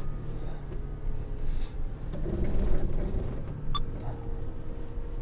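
Toyota 4Runner's V6 engine running at low speed in a steady low rumble as the truck crawls over rough ground on crawl control, with one brief click partway through.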